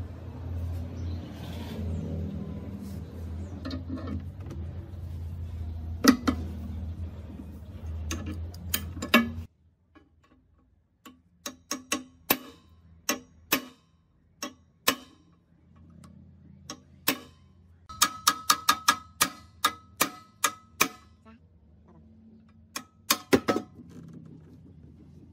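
Metal tools knocking and tapping on the metal parts of an old air compressor. A steady low hum with a few loud knocks runs for about nine seconds and then stops suddenly. Irregular sharp metallic taps and clinks follow, some in quick runs, one stretch of them with a brief ringing tone.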